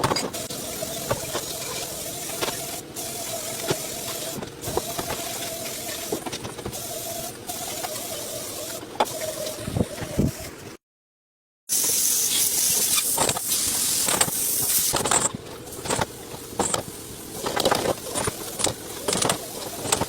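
Workshop sounds: a steady machine hum with scattered clicks and knocks, then, after a short break about eleven seconds in, a loud high hiss with many clicks and taps.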